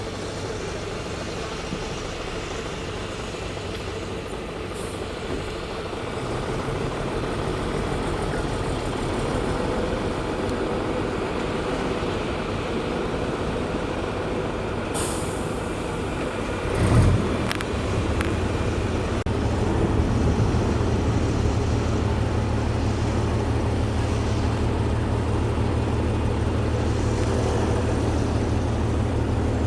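Heavy construction machine's diesel engine running steadily. A short hiss comes about fifteen seconds in and a sharp knock about two seconds later, after which the low engine drone is louder and steadier.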